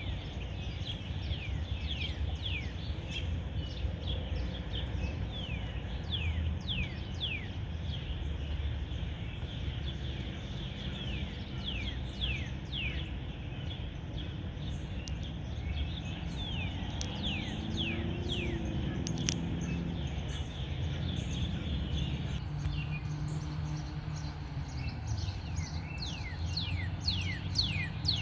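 Birds chirping: a steady run of quick, high, downward-sliding chirps, several a second, over a constant low rumble of outdoor background noise.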